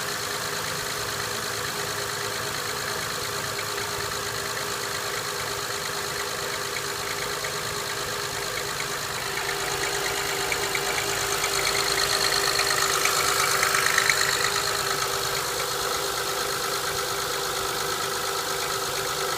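Honda Accord 3.0-litre V6 idling after a cold start with a rapid knocking tick, which the owner suspects is piston slap. The sound grows louder for a few seconds in the middle, then settles back.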